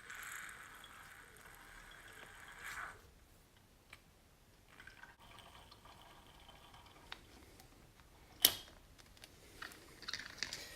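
Fork oil being pushed from a syringe into a motorcycle fork tube: a faint liquid trickle in two stretches, with a sharp click about eight and a half seconds in.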